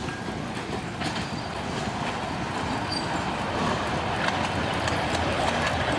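Miniature live-steam locomotive hauling a passenger train along the track, growing louder as it approaches, with a run of clicks from the wheels and rails.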